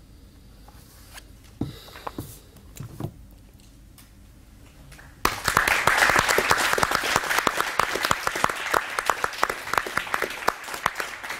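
Applause from an audience and the panel. It breaks out suddenly about five seconds in, after a quiet pause broken by a few faint knocks. It then carries on as dense, steady clapping that thins a little near the end.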